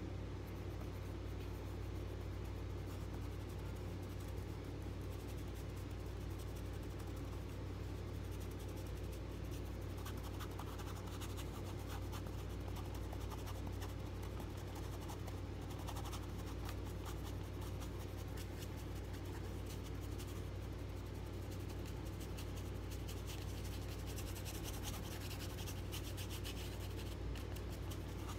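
Bristle paintbrush stroking and scrubbing acrylic paint onto canvas: a dry, scratchy brushing in quick repeated strokes, which grows busier about a third of the way in. A steady low hum lies under it.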